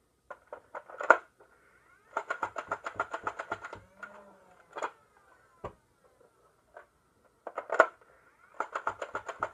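Stock Nerf Strife flywheel blaster firing a rapid burst of about six darts, its flywheel motor whine falling away afterwards. Sharp clacks of a magazine being swapped come about a second in and again near eight seconds, and a second rapid burst starts near the end.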